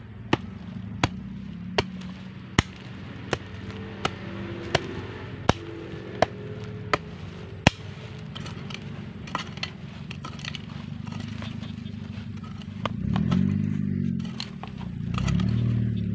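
A hoe chopping into dry, stony soil: sharp strikes about every three quarters of a second for the first half, then they stop. Near the end a low wavering hum swells twice.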